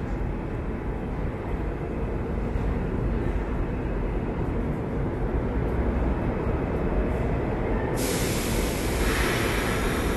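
Subway train rumbling in the tunnel, a steady low rumble that grows slightly louder, then a sudden loud rushing hiss about eight seconds in.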